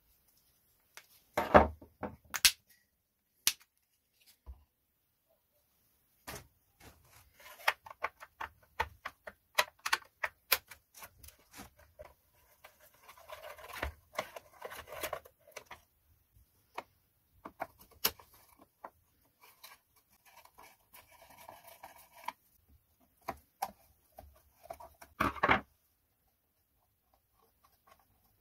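Chainsaw housing parts being handled and unscrewed with a screwdriver: scattered plastic clicks and taps, a stretch of scraping and ticking from the screwdriver about halfway through, and louder clatters near the start and near the end.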